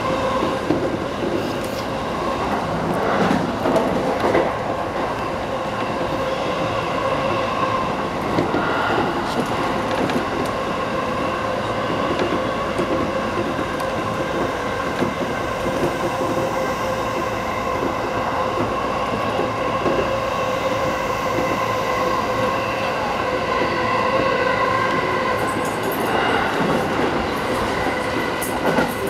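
JR East E233-8000 series electric commuter train running along the line, heard from inside the front car behind the driver's cab. Its steady running noise carries a whine of several held tones, with a few scattered knocks.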